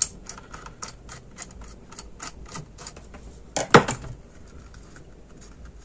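Irregular small clicks and taps of hard plastic and metal as a laptop motherboard and its copper heatsink are handled, with a louder clatter about two-thirds of the way in.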